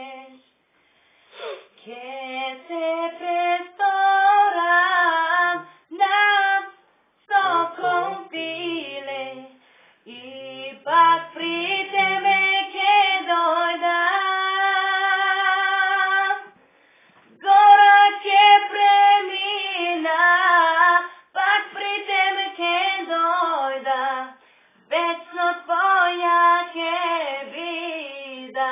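A girl singing a pop ballad unaccompanied, in phrases broken by short pauses for breath, with one long note held with vibrato about halfway through.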